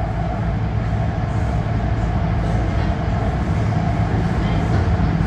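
São Paulo metro train running between stations, heard from inside the car: a steady low rumble with a steady whine over it.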